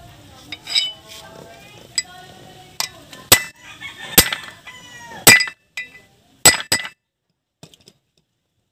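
Hammer blows on a steel drift, driving a new spindle (wheel hub) bearing into a Suzuki Multicab's brake disc hub: about nine sharp metal-on-metal clinks, each ringing briefly, irregularly spaced, stopping about seven seconds in.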